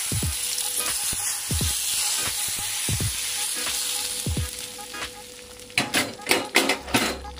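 Hot mustard oil poured over a curry as a tadka, sizzling as it hits the kasuri methi-topped gravy and fading after about five seconds. A few sharp knocks come near the end.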